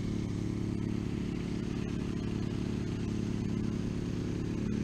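A steady, low engine-like hum that holds the same pitch throughout.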